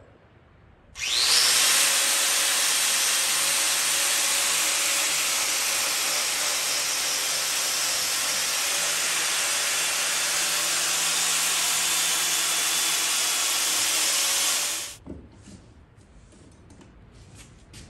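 Ridgid corded angle grinder grinding against the rusty steel head of an old ball-peen hammer held in a vise. It starts about a second in, runs steadily for about fourteen seconds, then cuts off sharply. After that come a few faint clicks as the hammer and vise are handled.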